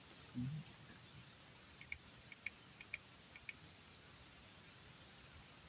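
Crickets trilling in a high, steady, on-and-off chirr, with a run of sharp clicks near the middle.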